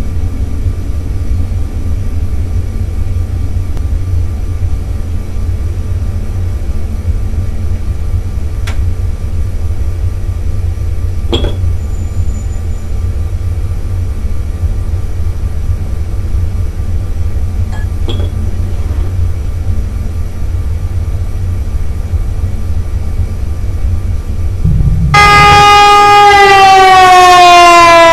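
A loud, steady low rumbling drone with a few faint clinks of glassware. About three seconds before the end, a loud siren-like wail starts suddenly, sinking and then rising in pitch.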